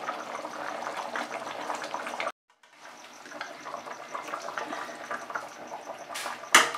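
Gravy simmering and bubbling in a pan, with a sudden break of about half a second a little over two seconds in before the bubbling resumes more quietly. Near the end, a metal spatula knocks sharply against the pan twice.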